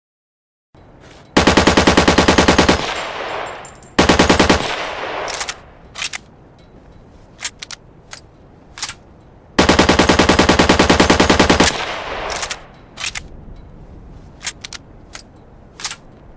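Heckler & Koch G3 7.62×51mm battle rifle firing on full automatic: a burst of about a second and a half, a short burst, then a longer burst of about two seconds, each shot in quick even succession and each burst trailing off in an echo. Single sharp clicks sound in the pauses and near the end.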